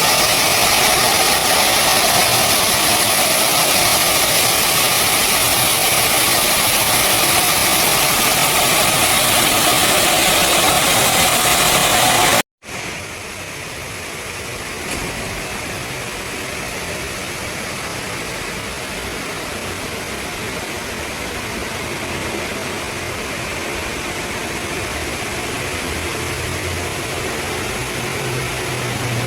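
Heavy machinery running with a loud, steady drone. About twelve seconds in it cuts off suddenly and gives way to a quieter steady machine noise, and a low hum comes in near the end.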